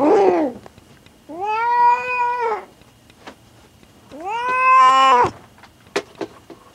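A queen cat in labor with her first litter yowling: a short falling cry, then two long drawn-out yowls, each held about a second and a half.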